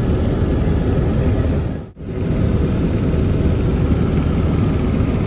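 Helicopter noise heard from inside the cabin: a loud, steady drone of rotor and turbine with a rough, fluttering low end. It briefly drops out about two seconds in, then carries on unchanged.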